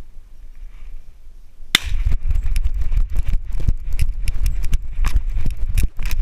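Rapid irregular thumping and knocking of a camera-carrying bird dog moving through brush: its footfalls and body jolts knock against the mounted camera, with clicks and scrapes. A single sharp crack stands out about two seconds in, after a quieter start.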